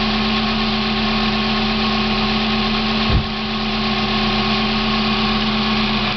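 1990 Mazda Miata's 1.6-litre four-cylinder idling steadily with the clutch pedal held in, the condition in which the owner's odd idle noise goes away. A brief low thump about three seconds in.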